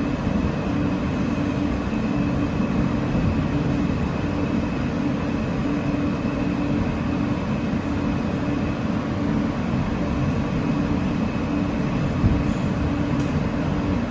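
Interior running noise of an Alstom R160A subway car moving through a station: a steady low rumble of wheels on rail with a steady whine above it. One brief knock about twelve seconds in.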